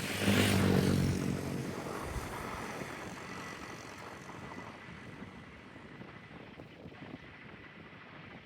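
Aircraft engine noise, loudest about a second in as it passes close, then fading steadily over the next several seconds as it moves away.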